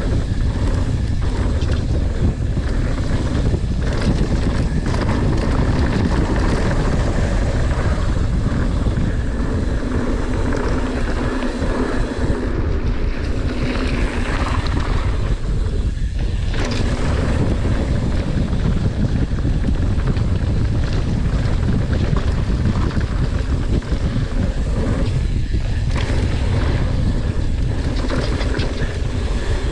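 Wind rushing over the microphone of a camera on a mountain bike rider speeding downhill, over the steady rumble of knobby tyres on a dirt trail, with scattered knocks from the bike over bumps.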